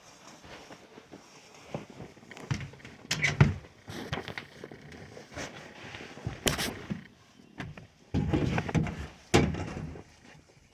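A series of knocks and thuds, the loudest two starting abruptly about eight and nine seconds in.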